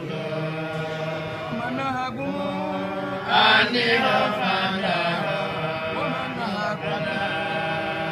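A man's voice chanting an Islamic devotional chant in long, held melodic notes, with a louder swell about three and a half seconds in.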